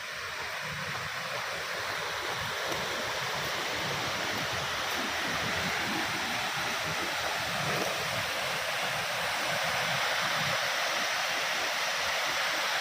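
Rushing water running steadily, growing gradually louder over the first few seconds and then holding.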